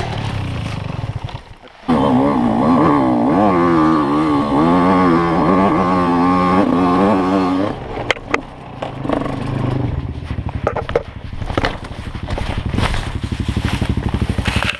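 Dirt bike engine, heard close up, cutting out for a moment, then revving hard for about six seconds with its pitch swinging rapidly up and down as the bike is ridden over a rough trail. After that the engine drops back and irregular knocks and scrapes of the bike over rough ground take over.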